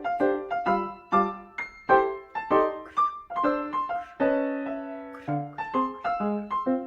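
Background music: a piano playing a light melody of separate struck notes, with a few held chords.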